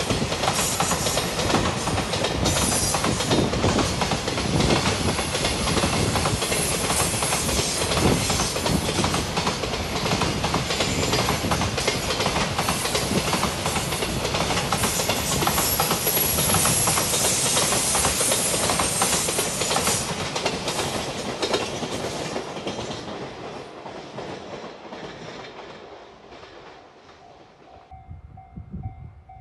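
Container wagons of a JR Freight train rolling through a station, a continuous clatter of wheels over the rails with a rushing noise that fades away over the last several seconds as the train recedes. Near the end a railway level-crossing bell rings with a steady repeating tone.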